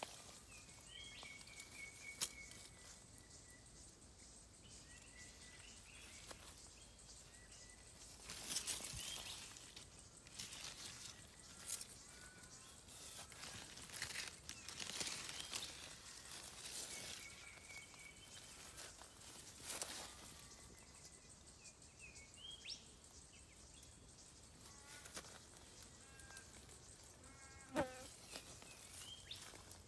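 Quiet outdoor ambience: faint, scattered chirps of small birds, with intermittent rustling as grapevine leaves brush close to the microphone, and a couple of sharp clicks.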